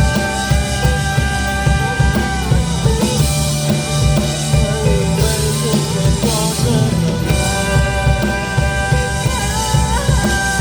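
Live amplified rock band playing a passage without recognised lyrics: drum kit and bass under held lead notes that bend and slide in pitch near the end.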